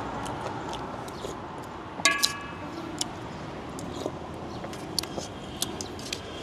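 Eating with utensils: scattered small clicks, and about two seconds in a spoon knocks against the bowl with a brief ringing clink, over a steady background hiss.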